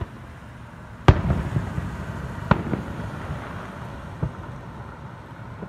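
Aerial fireworks shells bursting: a loud bang about a second in followed by crackling, a second bang about a second and a half later, and a fainter third about two seconds after that.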